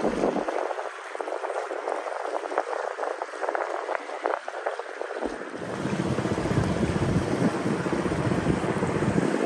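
A motor cruiser passing on the river, its engine running under a steady wash of water and wind noise on the microphone. The deep wind rumble is absent for the first five seconds or so and then returns.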